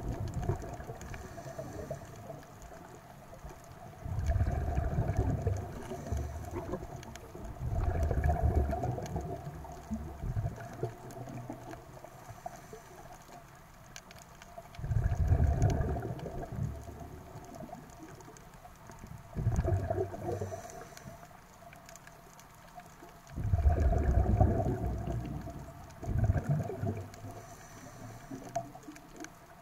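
Scuba diver breathing through a regulator underwater: about six bursts of exhaled bubbles, low and gurgling, come a few seconds apart, with a faint hiss of the inhale in some of the gaps.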